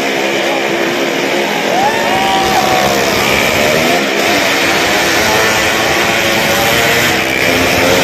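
Motorcycle engine running hard as the bike rides around the vertical wall of a well-of-death arena, with a rev that rises and then holds about two seconds in.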